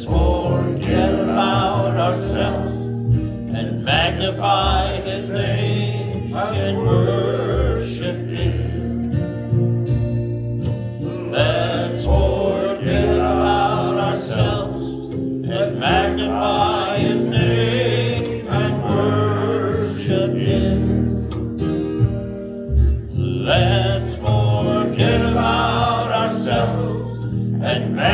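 A worship song sung by voices with guitar accompaniment, in phrases with short breaks between them over steady sustained chords.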